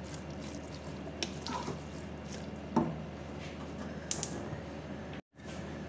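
Wooden spoon stirring wet raw minced mutton with spices and a little water in a metal pot: soft squishing with occasional scrapes and clicks against the pot, over a steady low hum. The sound cuts out briefly about five seconds in.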